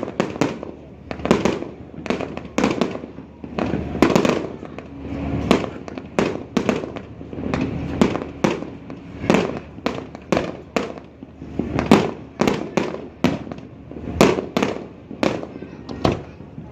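Fireworks display going off in a dense, irregular barrage of sharp bangs, about two or three a second.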